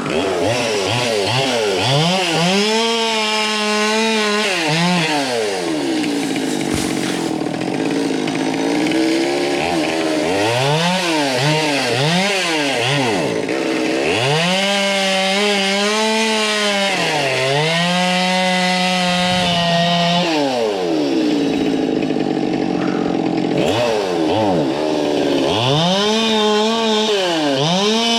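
Chainsaw cutting into Melaleuca (paperbark) wood, its engine pitch repeatedly climbing as it revs and dropping back as it loads up in the cut, held high for several seconds near the middle.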